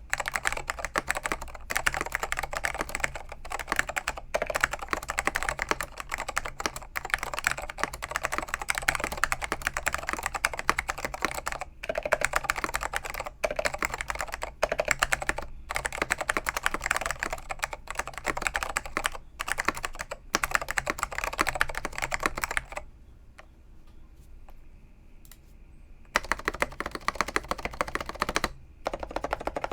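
Apple Extended Keyboard with orange Alps tactile switches being typed on fast and continuously, a dense patter of keystrokes from switches that are dry-lubed in a foam-dampened case. The typing stops for about three seconds near the end, then resumes.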